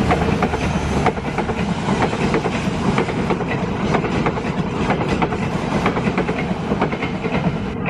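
Walahar Express passenger train passing close by: a steady rumble with rapid wheel clicks from the rail joints.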